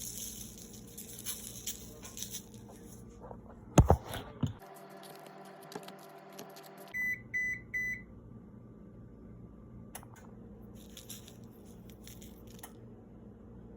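A kitchen appliance's electronic beeper sounds three short, even beeps about seven seconds in, over a steady low hum. A sharp clatter, the loudest sound, comes about four seconds in.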